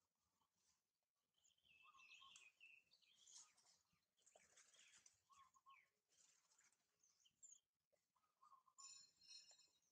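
Faint, high-pitched animal chirps and squeaks, scattered and short, over a near-silent background, with one clearer, ringing call about nine seconds in.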